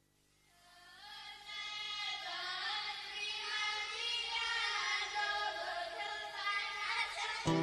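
Song intro: a choir of high voices fades in over the first second or two and sings in layered, gliding lines. Right at the end the band comes in loud with guitar.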